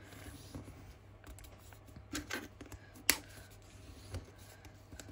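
Brown kraft paper being folded and pressed flat by hand on a cutting mat: soft rustling with a few light taps, and a sharper click about three seconds in.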